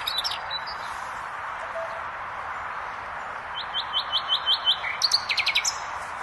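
Nightingale singing: near the start the end of one phrase, then a new phrase about three and a half seconds in, a rapid run of repeated high notes, about six a second, followed by a quick burst of falling notes. A steady background hiss underlies the song.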